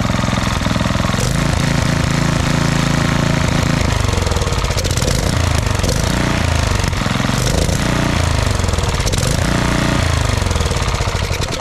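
Briggs & Stratton Intek 206 single-cylinder engine on a Troy-Bilt Pony tiller, running after a no-start. It holds steady for about four seconds, then revs up and falls back several times.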